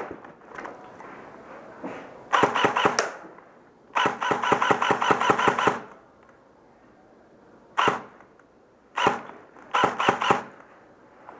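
Airsoft guns firing on full auto: a short burst, then a longer burst of about two seconds of rapid shots. After a pause come a few shorter bursts.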